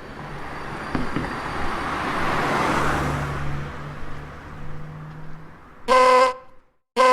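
A road vehicle going by: its engine and road noise swell to a peak about three seconds in and fade away. Near the end a vehicle horn gives two short honks.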